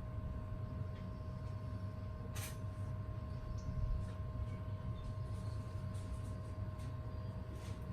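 Steady low hum with a faint constant whine, and a few light clicks, one a little sharper about two and a half seconds in.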